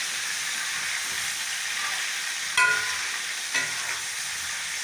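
Chicken leg pieces sizzling steadily as they fry in hot ghee with browned onions in a large metal pan, being browned until they take colour. A metal spatula knocks against the pan twice, the first about two and a half seconds in with a short ring, the second softer.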